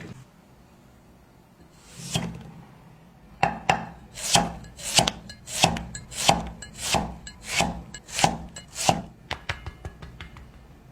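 Kitchen knife chopping on a wooden cutting board: about a dozen even strokes, roughly one and a half a second, with lighter taps in between.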